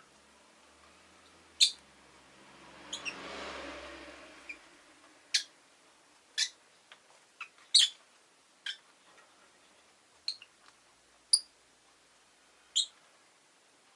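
Rosy-faced lovebird giving short, sharp single chirps, roughly one every second or so. About three seconds in, a vehicle passes, a swelling and fading rush of noise with a low hum.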